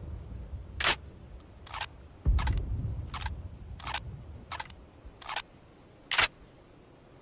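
Winchester trench gun, a pump-action shotgun, giving a series of about eight sharp metallic clicks and clacks from its action being worked. A low rumble comes in between about two and three seconds in, and the last click, about six seconds in, is the loudest.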